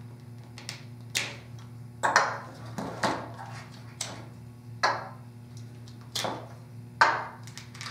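Plastic automotive cube relays being pulled from their sockets in a relay bank and set down on a wooden tabletop: a series of about seven sharp plastic clicks and taps, roughly one a second, over a faint steady hum.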